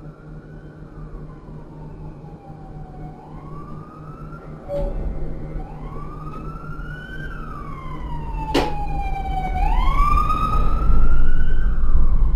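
The electric traction drive of a Rotax E6 tram whines in repeated pitch glides, each rising quickly and then sliding slowly down. The rumble of wheels on the rails sets in about five seconds in and grows louder. There is one sharp click a little past the middle.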